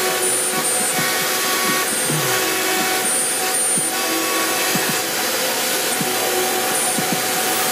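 CNC router spindle cutting letter outlines into a sheet panel: a steady machine noise with a few steady tones over it, and brief high-pitched whines that come and go several times.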